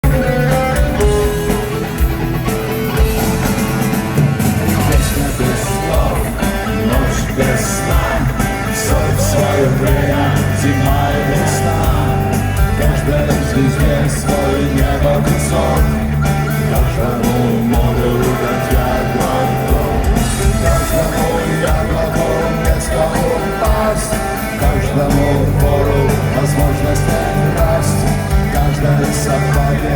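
Rock band playing live at full volume: pounding drums, heavy bass and electric guitars.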